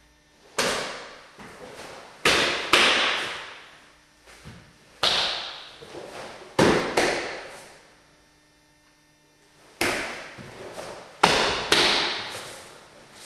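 Karate gi sleeves snapping and feet striking the floor as basic blocks and strikes are thrown: about nine sharp cracks, some in quick pairs, each trailing off in echo.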